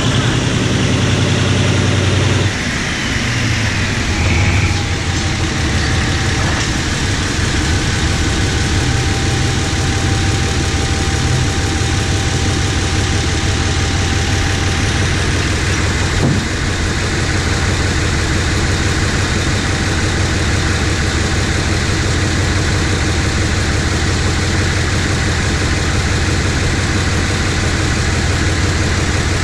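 GE GEK-class diesel-electric locomotive running as it shunts slowly past, a steady low engine drone that drops slightly about two and a half seconds in. A faint thin high tone holds for several seconds near the middle, and there is a single short knock later on.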